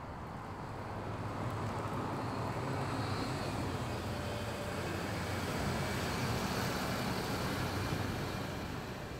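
A motor vehicle passing by. Its engine and road noise swell over the first few seconds, hold, and fade near the end.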